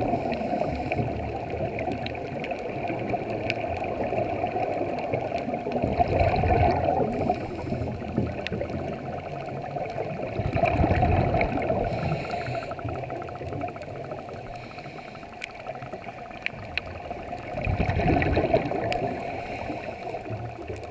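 Muffled underwater sound through a camera housing: scuba divers' exhaled bubbles gurgling over a low rumble, swelling louder a few times, with scattered faint clicks.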